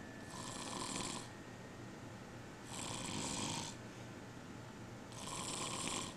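A man snoring in his sleep: three loud snores, each about a second long and about two and a half seconds apart, over the steady hum of an air conditioning unit.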